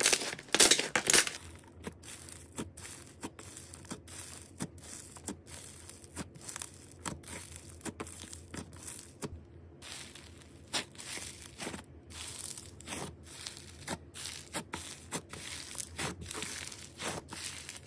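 Slime being squeezed and pressed by hand: loud crisp crackling for about the first second, then a long string of quieter sticky pops and clicks, with a brief pause about halfway through.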